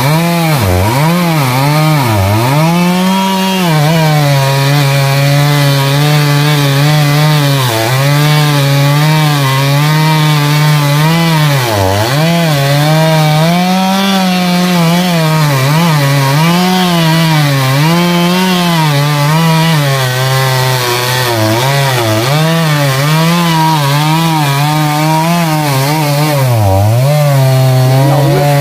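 Stihl MS 382 two-stroke chainsaw running at high revs while cutting into the base of a large rain tree trunk. Its engine note dips and recovers again and again as the chain bogs down in the wood.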